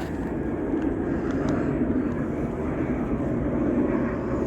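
Steady low rumble of an aircraft passing overhead.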